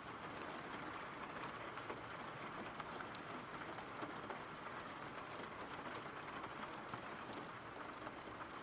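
Recorded rain ambience: steady rain falling, a quiet even hiss with faint scattered drop ticks.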